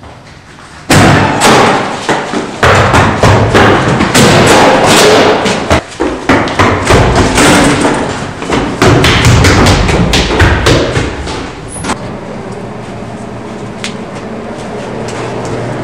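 A rapid run of loud thumps and bangs lasting about ten seconds, then a steady low hum that slowly grows louder.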